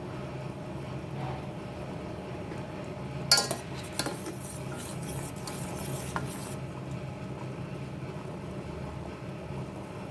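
A metal spoon or utensil clinks against a pot or cup a few times, sharply about three seconds in and again about a second later, with a brief hiss, over a steady low hum.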